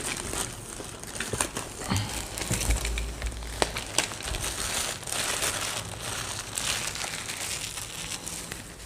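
A PC power supply's retail packaging being opened and handled: continuous crinkling and rustling of packaging, with scattered small clicks and knocks.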